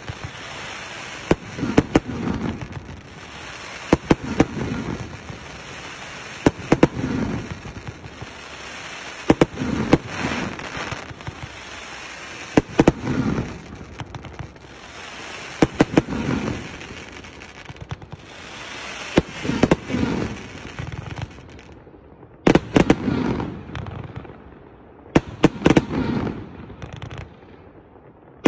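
A 1.2-inch, 80-shot 'Golden Palm' fireworks cake firing: sharp shots in quick groups of two or three about every three seconds, each group followed by a swelling hiss from the rising comets and their palm breaks.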